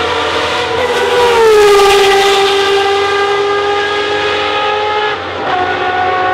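Matra MS670C's 3-litre V12 racing engine at high revs as the car passes at speed: a loud, high-pitched note with many overtones. The pitch drops as it goes by about a second in, and jumps back up near the end.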